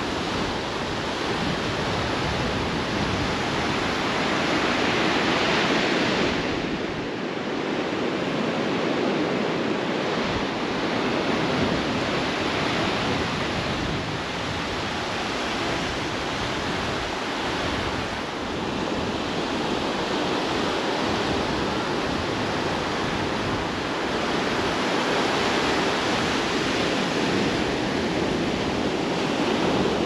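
Ocean surf washing onto a beach: a steady rush that swells and eases every several seconds, with a fluctuating rumble of wind on the microphone underneath.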